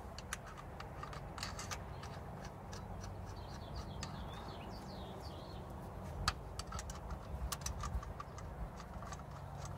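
Scattered light metallic clicks and taps of bolts and a hand wrench as the timing chain guide bolts are fitted and tightened, a little busier from about six seconds in, over a low steady hum.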